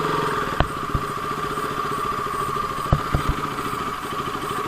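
KTM motorcycle engine idling steadily, with a few short clicks.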